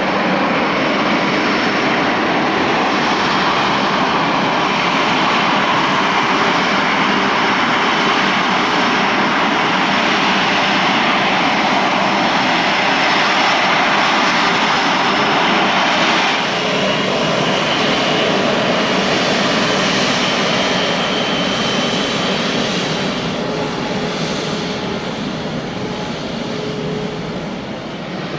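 Jet airliner engine noise from a Skymark Airlines Boeing 737-800 landing, a loud even rush. About two-thirds in it changes abruptly to the quieter, steadier whine of a Japan Airlines Airbus A350-900's engines as it taxis.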